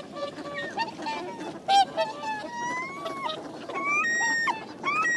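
A flock of whooper swans calling: many overlapping honking calls, some gliding up in pitch, turning into a quicker run of calls from about four seconds in.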